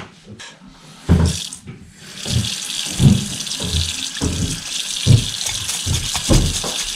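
Kitchen tap running into a ceramic sink from about two seconds in, while a dish brush scrubs the inside of a glass lampshade with dull knocks about twice a second. A few sharper knocks come before the water starts, as things are set down in the sink.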